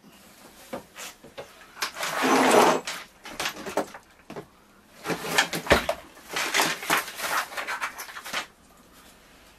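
Rummaging for small parts: a brief rustle, then a run of small clicks and knocks as parts and tools are handled.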